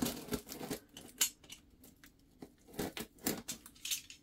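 Utility knife slitting the packing tape on a cardboard box: an irregular series of short scrapes and sharp clicks of the blade and the handling of the box.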